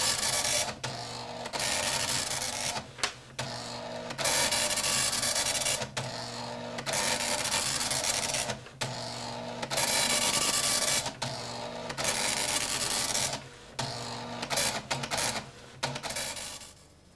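Printer-like mechanical chattering used as a sound effect for on-screen text being typed out, coming in runs of about one to two seconds with short pauses between them.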